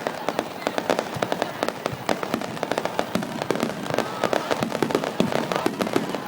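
Fireworks finale barrage: a dense, continuous crackle of many rapid bangs and pops, several a second without a break.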